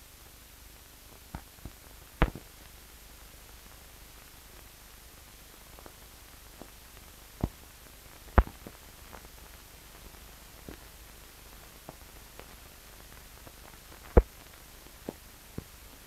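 Hiss from an old film soundtrack, with scattered sharp clicks and pops: about a dozen at irregular intervals, the loudest about two, eight and fourteen seconds in.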